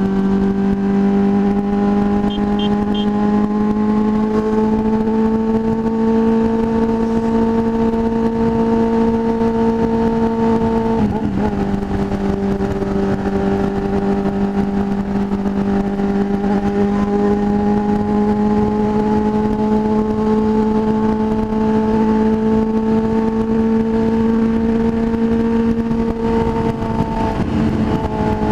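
Motorcycle engine heard from the rider's seat, its revs climbing slowly under steady acceleration, with two upshifts where the pitch drops: one about eleven seconds in and one near the end. Wind noise runs underneath.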